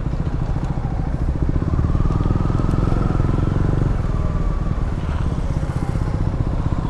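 KTM motorcycle engine running steadily while the bike is ridden along, with a faint higher tone drifting in and out in the middle.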